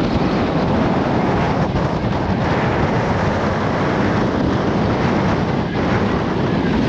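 Strong wind buffeting the camera microphone: a loud, steady rushing roar.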